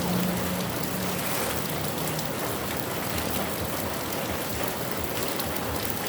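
Heavy rain falling steadily and pattering on surfaces. A low steady hum sounds under it for the first two seconds.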